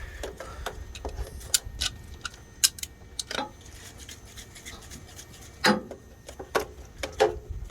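Irregular light clicks and clatter of hands handling small parts and tools, with a few louder knocks about a third of the way in, at the middle and near the end.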